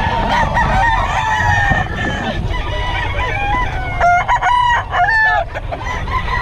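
Several gamecock roosters crowing over one another, with one loud crow about four seconds in.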